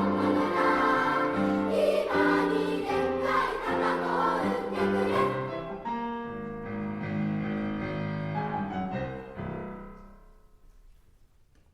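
Children's choir singing in three parts, ending the song on a long held final chord that dies away near the end.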